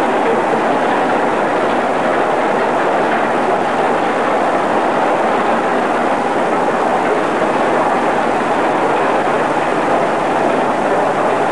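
Steady, loud noise of heavy industrial machinery running without pause, even in level throughout.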